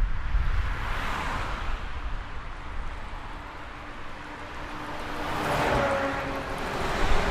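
Road traffic: cars passing by one after another, with a steady low rumble underneath. One car swells past about a second in, and a louder one with an audible engine note passes around six seconds in.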